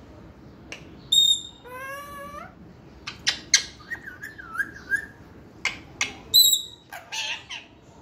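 Pet parrot calling: a loud high whistle about a second in, a rising drawn-out call, then a string of short sharp squawks with a wavering whistle among them.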